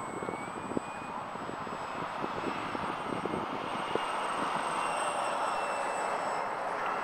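Radio-controlled Edge 540 aerobatic model plane flying overhead, its motor whining with a high steady tone and the buzz growing louder from about four seconds in as it passes close. Wind buffets the microphone in the first few seconds.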